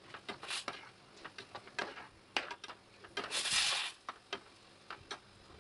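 Slotted metal spatula scraping and clicking against the pot while stirring soaked rice into oily masala, with one longer, louder scrape a little past three seconds in.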